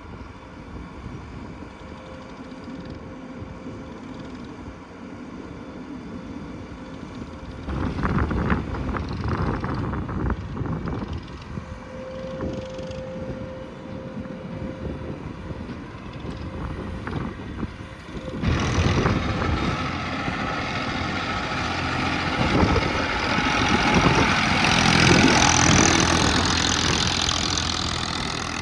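Diesel engines of earthmoving machinery, a backhoe loader and tractors, running at work, with the engine noise rising and falling under load. A loud surge comes about eight seconds in, and a louder one sets in from about eighteen seconds on.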